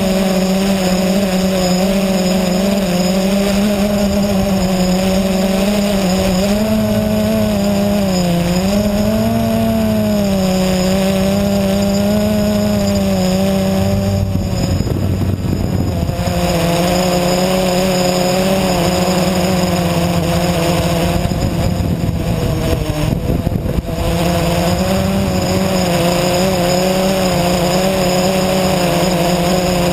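Blade 350 QX quadcopter's four brushless motors and propellers whining, heard close up from the onboard camera, the pitch wavering up and down with the throttle. Twice, around the middle and again later, the whine briefly drops away, leaving a rushing noise, as the throttle is eased off.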